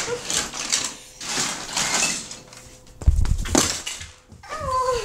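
Rustling and bumping of a handheld camera being moved and covered, with a heavy thump about three seconds in and a sharp click just after. Near the end a child's voice makes a short sound that slides down in pitch.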